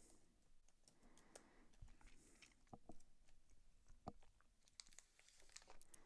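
Near silence broken by a few faint, irregular computer keyboard clicks as code is typed.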